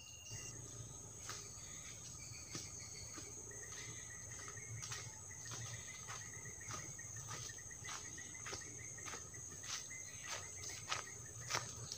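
Forest insects, crickets among them, keep up a steady high-pitched drone, with a rapid pulsing trill joining in a few seconds in. Scattered crackles, like steps on dry leaf litter, grow louder toward the end.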